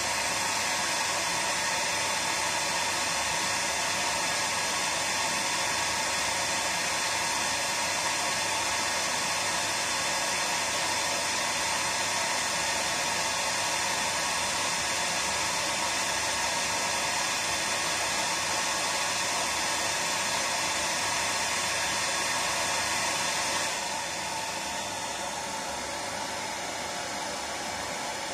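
Hair dryer blowing steadily, a dense, even airy hiss. About 24 seconds in it drops a little in level and turns less hissy, then carries on steadily.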